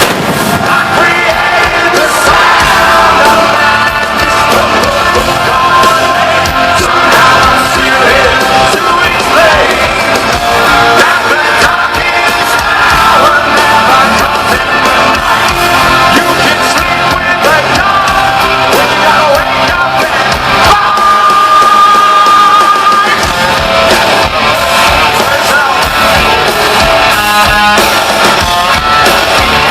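Rock band playing loudly live with a sung lead vocal, with a few yells over the top.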